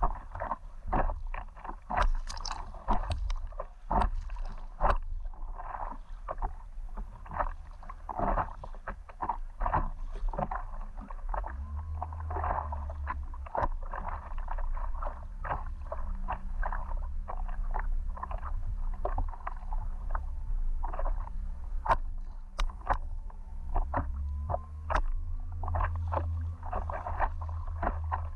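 Water splashing and lapping as an inflatable stand-up paddleboard is paddled, with many short, irregular splashes over a low steady rumble.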